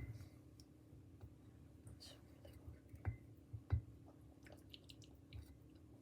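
Quiet room with a few faint clicks and soft knocks, over a low steady hum.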